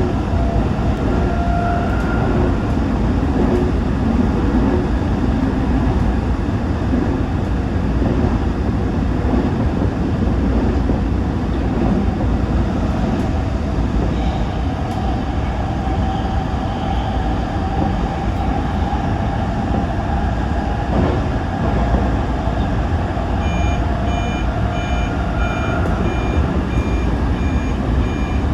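Toyo Rapid Railway 2000-series electric train running, a steady rumble of wheels and running gear heard from inside the car. Near the end an electronic beeping starts, about two short beeps a second.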